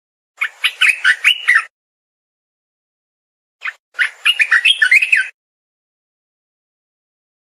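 Olive-winged bulbul (merbah belukar) singing: two short warbling phrases of quick notes sliding up and down, about three seconds apart.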